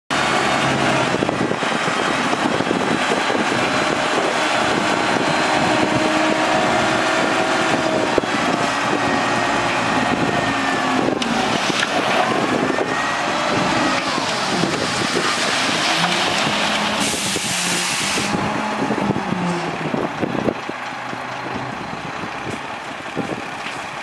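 Diesel engine of a 12-wheel dump truck running and revving up and down as it tips its bed, with the load of dirt sliding out. There is a brief hiss about three-quarters of the way through, and the engine eases off near the end.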